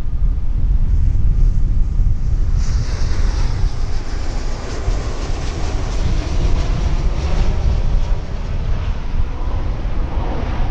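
Twin-engine propeller plane's engines and propellers running on the runway, growing sharply louder and brighter about two and a half seconds in, over heavy wind buffeting the microphone.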